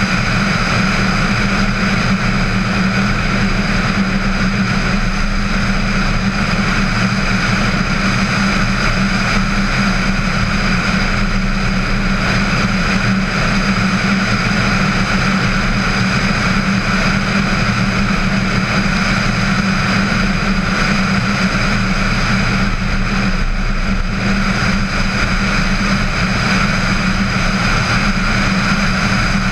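Steady wind and road noise of a VW Tiguan driving along at a constant speed, with an even low drone, picked up outside the car by a camera suction-mounted on the hood.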